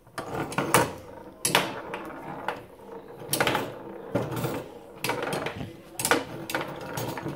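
Tabletop mini foosball game in play: irregular plastic clacks and knocks as the players on the rods strike the ball and the rods are jerked and twisted in the box, sometimes two or three in quick succession.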